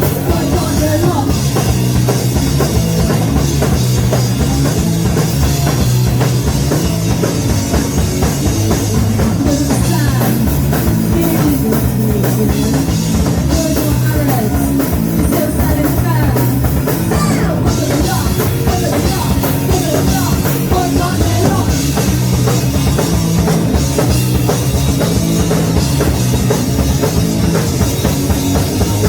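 Punk rock band playing live and loud: a full drum kit driving a steady beat under amplified instruments.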